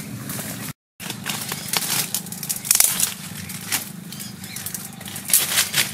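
Dry leaves, twigs and brush rustling and crackling as they are pushed through and trodden on, with irregular sharp snaps and clicks, over a steady low hum. The sound cuts out for a moment under a second in.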